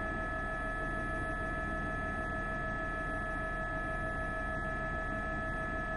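News helicopter heard from on board: a steady whine holding a few fixed pitches over a constant low rumble.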